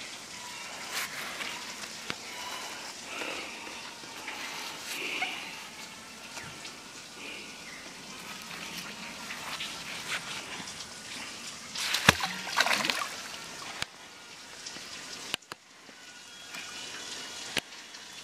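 Creek water sloshing and trickling as a magnet-fishing magnet is dragged back through the shallows. A cluster of sharp knocks and clatter comes about twelve seconds in.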